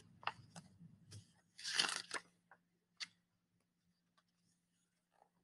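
Faint paper rustling and soft clicks of a picture book being handled and its page turned, with one short rustle about two seconds in and a sharp click about a second later. A faint steady low hum sits underneath.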